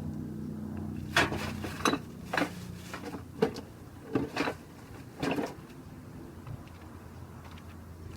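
Short sharp knocks and clatters, about seven over four seconds, from motorcycle drive-train parts and tools being handled during disassembly. A low steady hum fades out about two seconds in.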